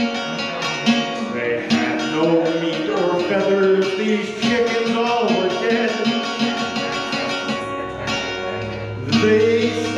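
Archtop guitar playing chords and notes in a live solo song, with a man's voice singing along in places.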